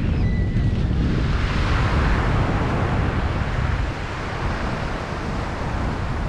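Wind buffeting the microphone with a steady low rumble, over surf washing onto a sandy beach; the hiss of a wave swells about a second and a half in and eases off.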